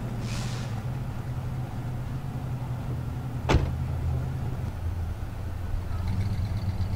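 Ford Mustang's engine running at a steady idle, with a single sharp click a little past halfway. Near the end the engine note changes as the car starts to pull away slowly.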